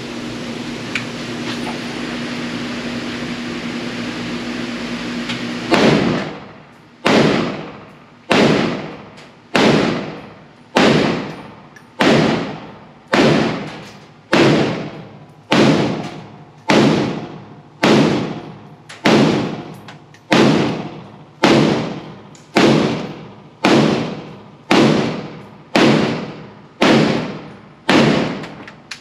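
IWI Galil ACE pistol in 7.62x51 (.308) fired in slow semi-automatic, about twenty shots roughly a second apart, each ringing off in the reverberant booth of an indoor range. The shots start about six seconds in, after a steady background hum.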